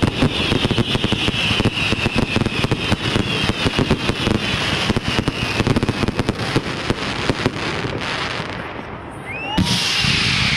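Fireworks crackling: a dense run of rapid pops and crackles that thins out after about eight seconds. Near the end comes a sudden loud burst with whistles gliding up and down.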